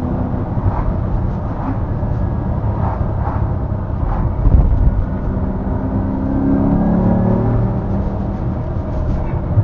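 Ferrari-derived 4.2-litre V8 of a 2004 Maserati Coupe GT Cambiocorsa, heard from inside the cabin while driving, its note rising as it accelerates from about six seconds in. A brief low rush about four and a half seconds in, as an oncoming car passes close.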